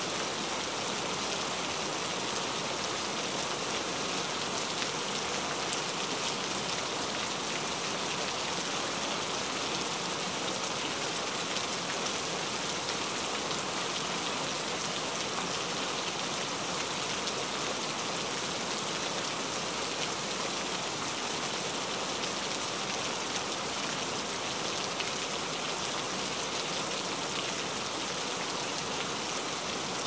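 Steady rain falling, an even hiss of many drops without a break.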